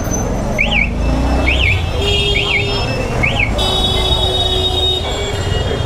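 Street traffic in a jam: vehicle horns honking in long blasts, an electronic horn or alarm chirping up and down four times about once a second, and an engine revving up in the first second and a half, all over a steady rumble of engines.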